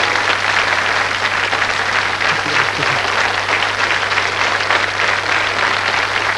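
Studio audience applauding, a dense steady patter of many hands clapping.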